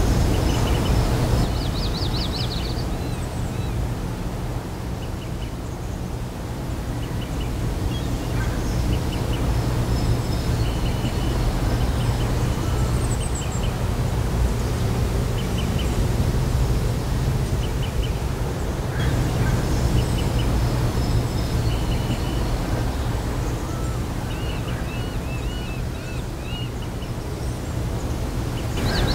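Outdoor ambience soundtrack: birds chirping and trilling in short calls over a steady low rumble.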